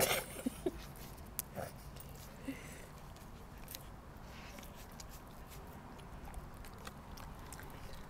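A dog working a wooden Dog Turbo treat-puzzle board on concrete: scattered clicks and knocks of the board and its pegs as she paws and noses it, loudest at the very start and thinning out after about four seconds, with the dog chewing treats.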